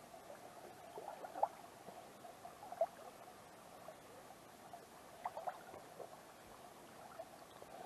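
Shallow creek trickling and gurgling faintly, with a few brief louder gurgles.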